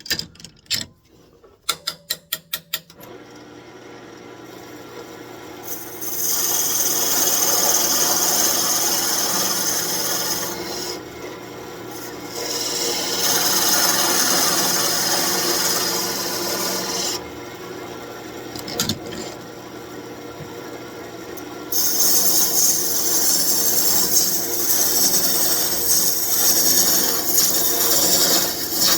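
A quick run of clicks, then a wood lathe running with a steady hum while a turning tool cuts the spinning birch, a loud hissing scrape in three long passes with short breaks between.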